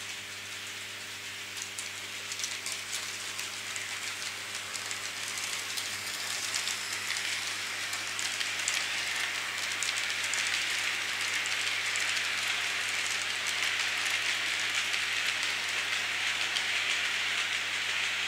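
Märklin HO model freight train rolling along the track: a steady hiss of wheels on rails with light clicking. It grows louder from about six seconds in as the train comes close.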